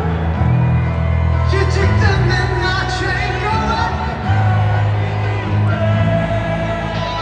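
Live rock band playing through a stadium sound system, with a singer's voice over held bass notes and drums, heard from the stands.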